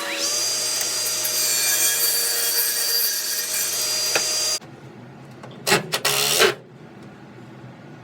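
An electric power tool running steadily, then stopping about four and a half seconds in, followed by two short bursts of the tool a second or so later.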